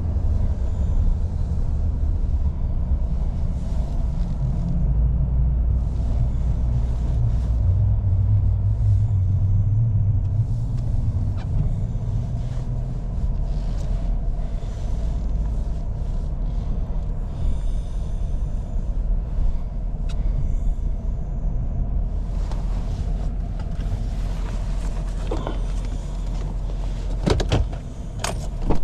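Pickup truck on the move, heard from inside: a steady low engine and road rumble. Near the end come a few sharp clicks and a knock.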